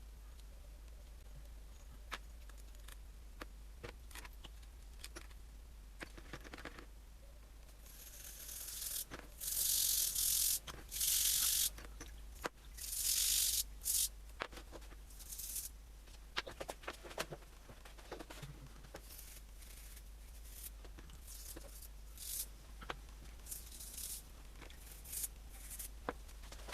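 Light clicks and knocks of small metal parts being handled, with a run of loud hissing bursts, each about a second long, between about a third and halfway in.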